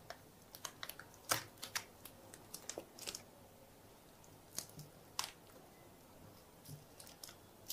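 Foam padding being peeled and torn by hand off a battery pack's cells: faint, scattered crackles and soft clicks, with a few sharper ticks about a second and three seconds in.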